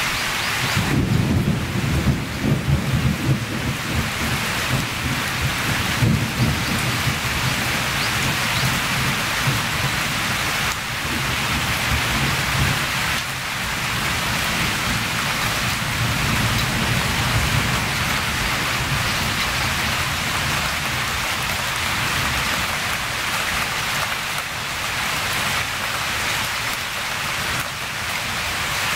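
Steady heavy rain during a storm. A low rumble joins it about a second in and lasts several seconds, then comes back more weakly around the middle.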